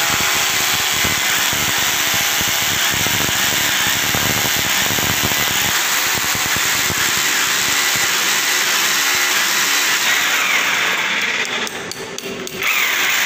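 Electric rotary hammer drill boring into a tiled concrete stair step for railing-post anchor holes, running steadily under load for about eleven seconds, then dropping off briefly near the end.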